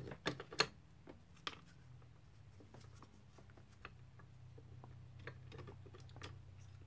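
Small clicks and taps from handling a microsoldering station's tweezers and tip: a quick cluster of sharp clicks in the first second, another about a second and a half in, then scattered faint ticks over a low steady hum.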